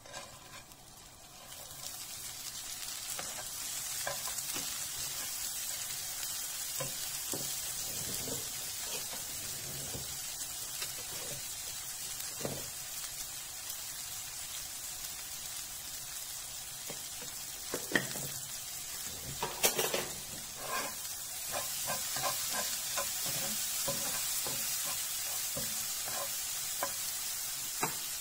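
Barberries sizzling as they fry in melted butter in a nonstick frying pan. The sizzle starts about two seconds in, when the berries go into the pan. A wooden spoon stirs them, tapping and scraping on the pan, with a cluster of sharper knocks about two-thirds of the way through.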